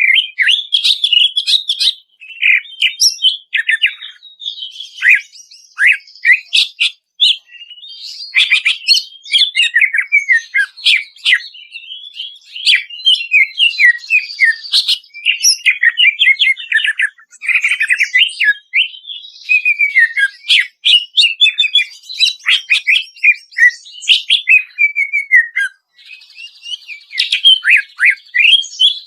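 Cucak ijo (green leafbird) singing a long, varied song of rapid chattering notes, trills and sliding whistles, broken only by brief pauses. It is a masteran recording, used to prompt caged birds to sing.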